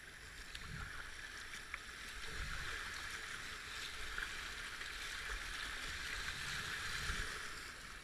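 Shallow river rapid rushing and splashing around a kayak's hull as it runs through whitewater. The rush swells from about two seconds in and eases near the end.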